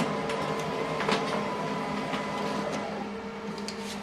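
HP Color LaserJet Pro MFP 3302fdw laser printer running as it prints a test page: a steady hum with a few light clicks, the clearest about a second in.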